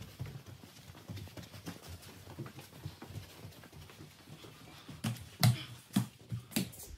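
Footsteps climbing carpeted stairs, a run of soft thuds, with a few louder, sharper footfalls and knocks about five to six and a half seconds in.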